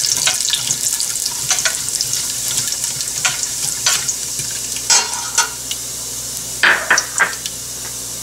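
Cumin seeds sizzling in hot oil in a stainless steel pot, a steady hiss, with scattered scrapes and clinks of a metal slotted spoon stirring against the pot.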